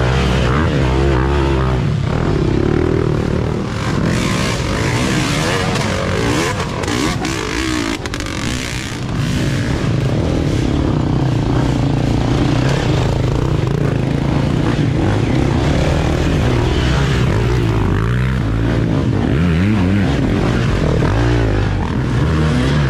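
Off-road racing dirt bike engines revving, the pitch rising and falling as the throttle is worked through a rock section.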